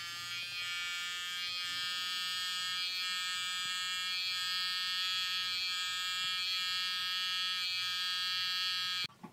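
Electric hair clipper running with a steady high buzzing whine while trimming fur on a cat's paw; it cuts off abruptly near the end.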